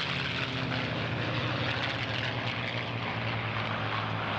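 Piston engines of P-51 Mustang fighters running steadily in a flypast, with an engine note that sinks slightly.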